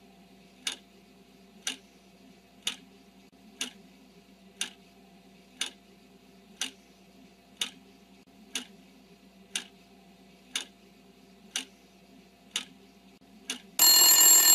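Quiz countdown sound effect: a clock ticking once a second, then a loud ringing alarm bell near the end that signals time is up.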